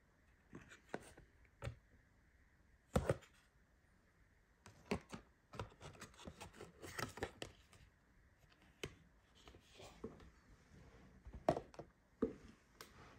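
Cardboard model-car box and its card insert being handled by hand: scattered light taps, clicks and scrapes, with a sharper knock about three seconds in, a busy run of handling in the middle, and another knock near the end.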